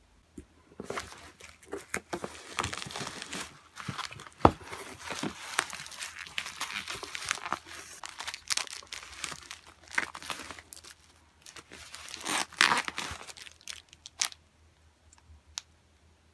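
Bubble wrap and plastic packaging crinkling and rustling in irregular bursts with many small crackles, as a bubble-wrapped package is pulled out of a cardboard box and handled. There is a single sharp crack about four and a half seconds in.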